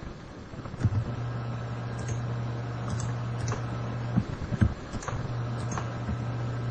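Steady low hum of a computer, starting about a second in, with scattered irregular clicks of a mouse being used at the desk.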